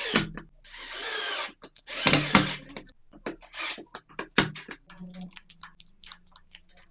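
Electric drill run in about four short bursts of a second or less, then scattered clicks and small knocks.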